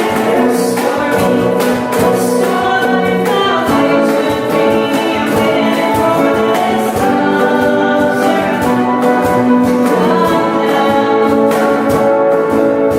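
Live concert performance of a song: voices singing over instrumental accompaniment, with a steady drum beat.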